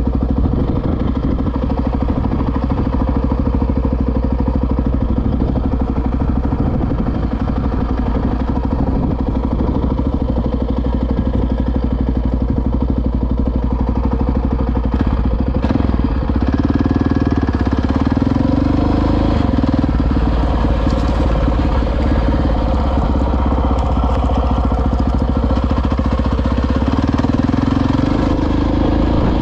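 Honda XR650R's single-cylinder four-stroke engine running steadily with the bike stopped, then revving up as the bike pulls away about halfway through and rides along a dirt track, the engine note rising and falling with the throttle.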